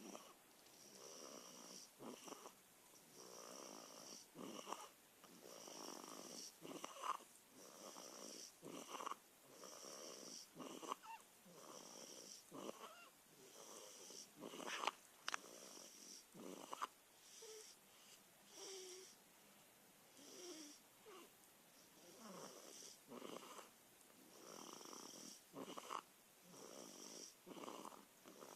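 Faint, rhythmic snoring, one breath about every second, with a sharper snort about halfway through.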